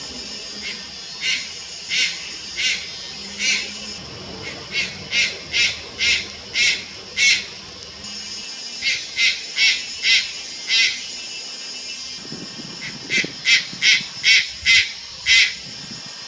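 Juvenile Malayan night heron giving short calls in runs of five to eight, about two a second, with brief pauses between the runs.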